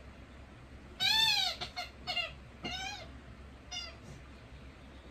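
A dog's squeaky toy squeaking as the dog plays with it: one long, loud squeak about a second in, rising then falling in pitch, followed by several shorter, fainter squeaks.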